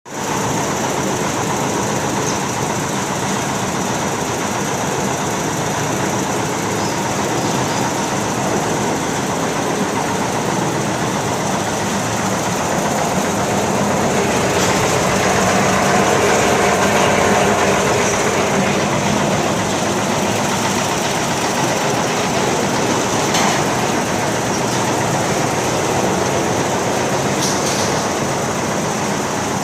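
Tractor-driven concrete transit mixer running: the tractor engine and the turning mixer drum make a steady, loud mechanical noise that swells a little about halfway through, with a couple of brief knocks near the end.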